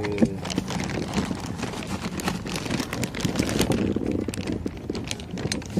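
Rustling handling noise and wind on a phone microphone carried at a walk, with many irregular small clicks and scuffs over a low steady hum.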